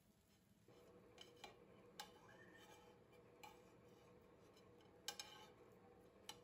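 Faint clicks and taps of a metal knife against a flat iron pan as toasting bread slices are lifted and turned, about seven in all, loudest as a quick pair near the end, over a low steady background hum that comes up about a second in.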